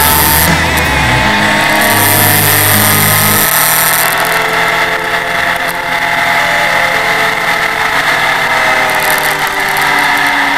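Honda CBR1100XX Super Blackbird's inline-four engine running under way at road speed, its pitch rising at first and then holding roughly steady with slow drifts, with wind rush over the bike.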